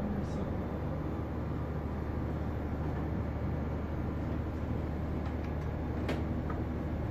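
Steady low hum of a ship's machinery, with a single sharp click about six seconds in.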